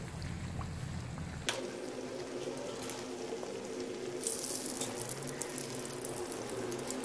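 Kachoris deep-frying in hot ghee in a karahi: a steady sizzle and bubbling of oil, with a sharp click about a second and a half in. About four seconds in the sizzle turns louder and hissier as the fried kachoris are lifted from the oil with tongs and a slotted spoon.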